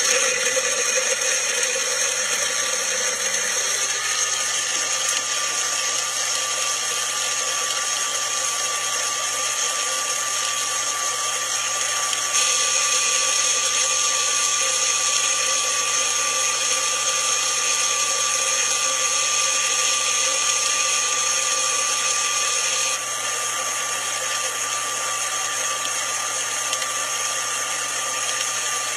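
Magic Bullet blender motor running steadily, blades churning soaked almonds, water and dates into almond milk. It gets louder about twelve seconds in and eases off a little after about twenty-three seconds.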